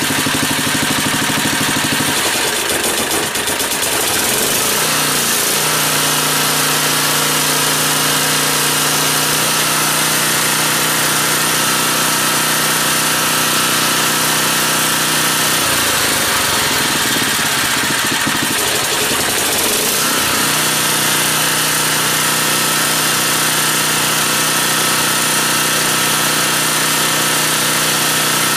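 Generac 4000XL portable generator's engine running, its pitch shifting and unsettled for a few seconds twice as an electric load is switched on and off, then settling to a steady speed each time. The idle control drops the engine so low that it only barely picks back up under load.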